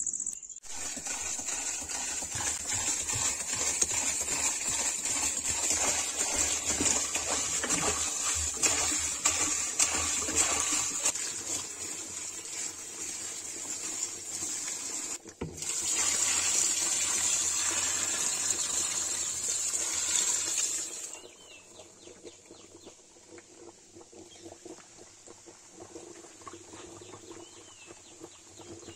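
Buttermilk pouring in a thick stream onto chopped leaves in a plastic drum, a steady gushing splash, with crickets chirring. The pouring breaks off briefly about 15 seconds in and stops about 21 seconds in, leaving the crickets fainter.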